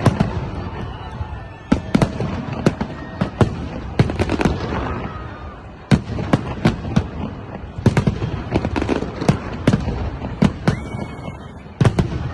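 Fireworks display: a rapid, irregular series of sharp aerial shell bangs and crackles, several a second at times, over a steady rumble of distant explosions.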